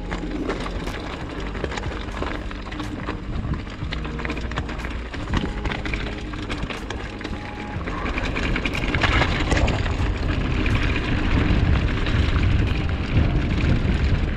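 Wind buffeting an action camera's microphone, a loud low rumble with scattered clicks and knocks, growing louder about eight seconds in.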